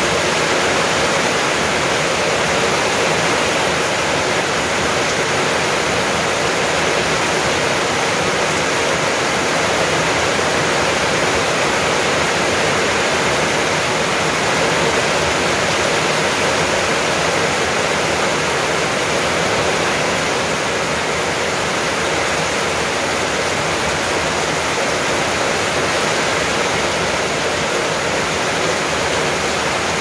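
Rain falling steadily on wet tiled paving and garden foliage, a dense, even hiss that eases slightly about twenty seconds in.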